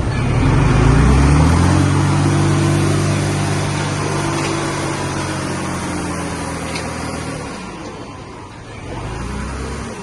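Heavy machine's diesel engine revving up and then holding steady under load, easing off about seven and a half seconds in.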